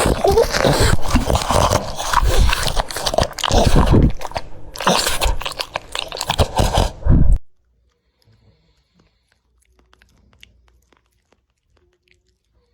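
A dog chewing and crunching its food: dense, rapid crunches that stop abruptly about seven seconds in, followed by near silence with a few faint ticks.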